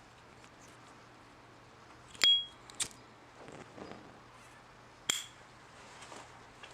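Sharp clicks, each of the two louder ones followed by a brief high-pitched ping, about three seconds apart, with a fainter click just after the first.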